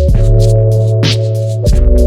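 Background music: an electronic track with a deep bass line, sustained chords and a steady beat of light percussion ticks.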